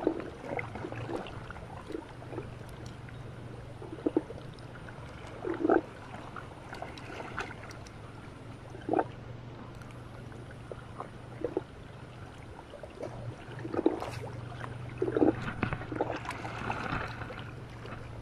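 Small waves lapping and splashing against shoreline rocks, with short splashes every couple of seconds over a steady low hum.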